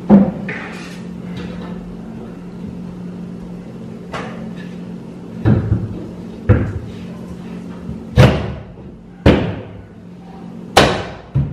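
Palms knocking an MDF cabinet top panel up into a tight press fit: a series of sharp wooden knocks and thumps, irregularly spaced a second or two apart.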